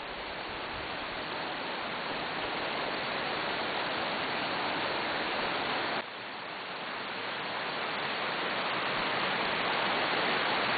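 Spring water rushing and splashing over rocks in a steady, full rush. It drops suddenly about halfway through, then builds again.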